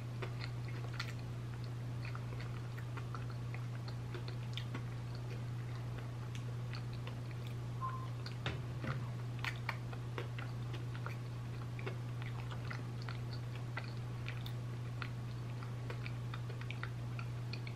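A person chewing a soft Little Debbie Christmas snack cake, with small scattered wet mouth clicks, over a steady low hum.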